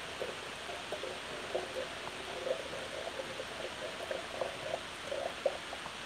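Steady static hiss, with faint, broken gurgling of water in a kettle.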